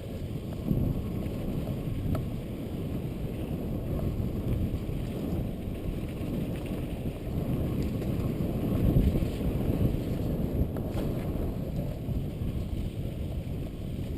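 Wind buffeting the microphone of a camera carried at speed down a snow slope: a steady, gusting rumble.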